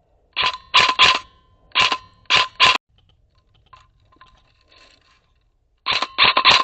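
Airsoft replica firing single shots in quick succession, about three a second, in three groups of three with a pause of a few seconds before the last group.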